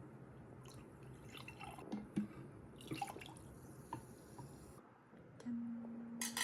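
Faint scattered small clicks and drip-like taps over a low hum, then a short steady low tone and a sharp click near the end.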